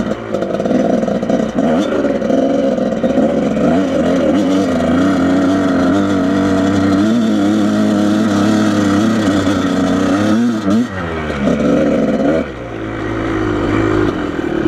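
Dirt bike engine running under load off road, its revs rising and falling with the throttle. There is a quick rev dip about ten and a half seconds in and a drop in load at about twelve and a half seconds.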